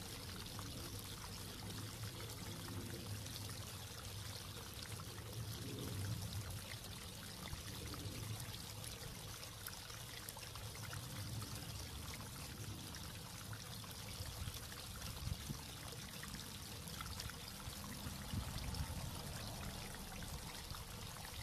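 Water trickling and splashing steadily over rocks in a small garden waterfall.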